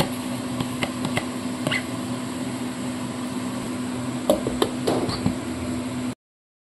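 Light clicks and knocks as a mixer-grinder's steel jar is handled and its plastic lid fitted on, over a steady low electric hum.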